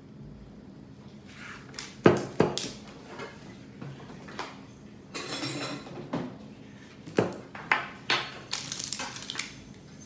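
Tableware being handled and set down on a wooden table: a series of knocks and clinks from a metal spoon and glass containers. The loudest knocks come about two seconds in, and there is a quick clatter near the end.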